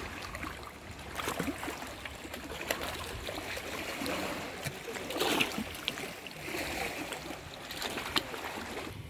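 Small waves lapping and trickling over the rocks at the water's edge, with a few scattered clicks and knocks.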